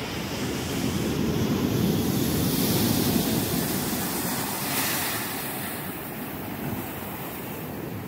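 Ocean surf breaking against beach rocks and washing up the sand, swelling to its loudest about three seconds in, with a short hissing surge near five seconds before easing.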